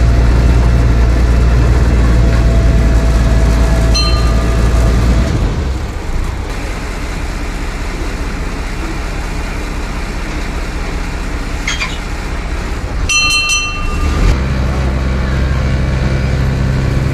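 A vehicle engine running steadily, dropping in level about five seconds in and rising again near the end, with short high tones like horn toots about four seconds in and twice around twelve to fourteen seconds.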